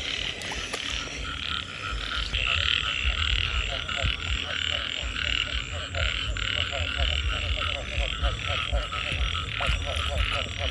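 Frogs croaking in chorus from a flooded field at night: quick runs of short pulsed calls repeating throughout the second half, over a steady high-pitched trilling chorus and a low rumble.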